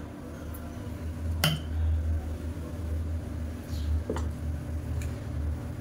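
Thick ragi idli batter being ladled into a steel idli plate, with two light clicks of the ladle against the metal, about a second and a half in and again about four seconds in, over a low rumble.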